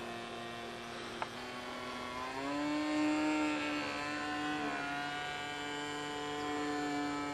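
Engine of a radio-controlled Su-31 model aerobatic plane running in flight. Its pitch rises a little over two seconds in and then holds steady, with a brief dip about two-thirds through. There is one sharp click about a second in.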